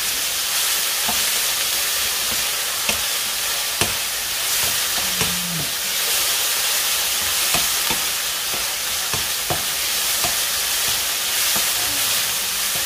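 Thin slices of marinated pork sizzling in a hot frying pan as a wooden spatula stirs them. Irregular clicks and scrapes of the spatula against the pan sound over a steady hiss.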